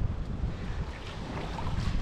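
Wind buffeting the microphone, an uneven low rumbling noise.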